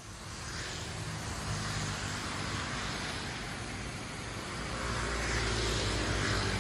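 Road traffic passing on a city street: a steady low rumble with tyre hiss that swells about a second and a half in and again around five seconds in.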